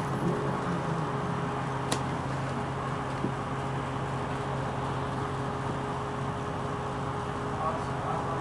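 Dennis Arrow double-decker bus engine running steadily: a low, even drone with a faint steady whine over it, and a single click about two seconds in.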